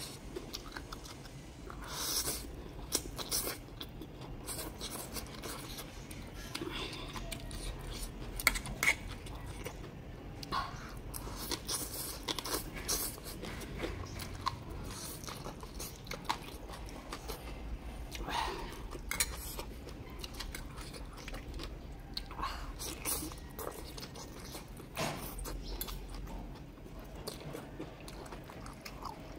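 A person eating spicy noodles: drawing noodles into the mouth and chewing, with many short, scattered wet clicks and smacks.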